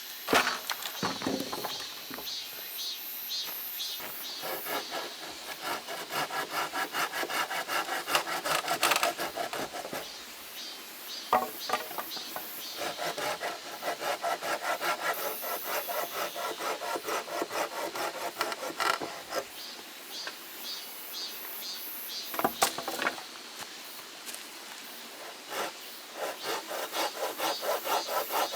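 Hand saw cutting through wood, rasping back and forth in quick even strokes, in several bouts with short pauses and an odd knock between them.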